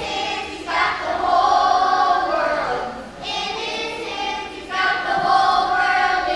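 Children's choir singing together in unison, in phrases of long held notes.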